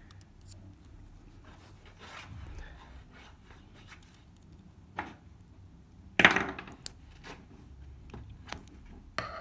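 Lockpicking a Burg Wächter Alutitan aluminium padlock: a metal pick and tension wrench scraping and ticking faintly in the keyway, with hand-handling noise. A louder clack comes about six seconds in, followed by a smaller click.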